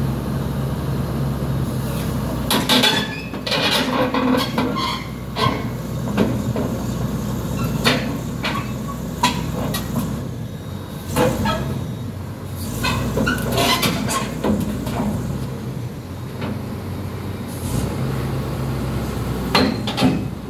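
XCMG XE215C hydraulic excavator's diesel engine running steadily as the machine tracks up onto a lowbed trailer, its steel tracks clanking and knocking against the trailer's steel ramp and deck in repeated bursts.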